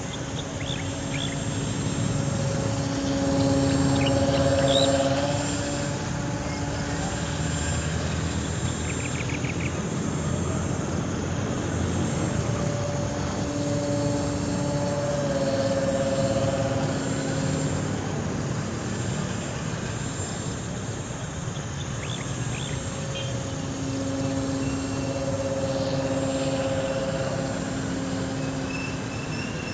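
Electric RC plane's 1400kv brushless motor and propeller buzzing in flight, the hum swelling three times as the plane passes close (about four seconds in, around fifteen seconds, and near the end) and stepping up and down in pitch. A steady low rumble runs underneath.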